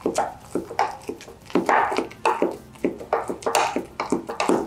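A spatula mashing ripe banana against the bottom and sides of a plastic measuring jug: quick, irregular, soft mashing and scraping strokes, several a second.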